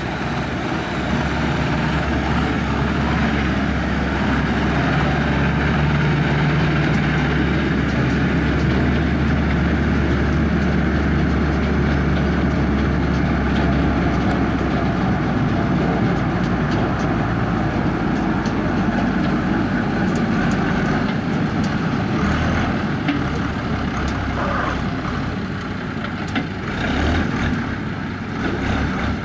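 Tractor diesel engines running steadily under load as they drive sugar beet topping and lifting machinery. From about two-thirds of the way in, knocks and rattles from the harvesting gear come in over the engine.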